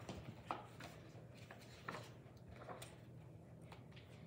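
Faint rustling and a few light taps over a low steady room hum, from children moving about on the spot.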